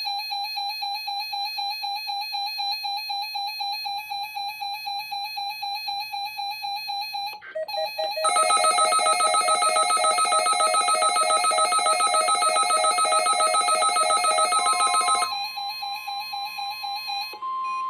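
Electronic alert tones of a NOAA Weather Radio test: a warbling beeper tone, joined about eight seconds in by a louder, denser alarm that stops about seven seconds later. Near the end a steady 1050 Hz weather radio warning alarm tone sounds under the warbling.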